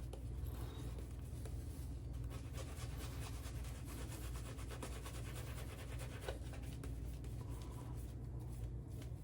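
Faint, steady wet swishing and crackling of a shaving brush with a 26 mm Boti Foregoer knot working Hanami Classic Shave vegan soap into a building lather.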